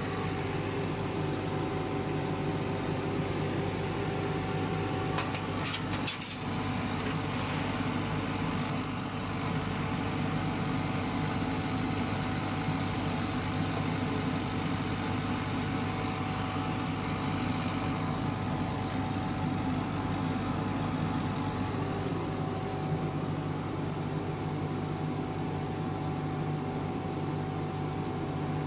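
Steady machine hum with a constant mid-pitched whine over it, from a laser cutting machine and its equipment running in the workshop. A couple of faint clicks about five to six seconds in.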